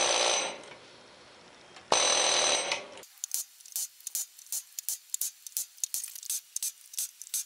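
Pneumatic impact wrench hammering on a stubborn ATV rear axle nut in two short bursts, the second starting about two seconds in, then a run of light, irregular clicks.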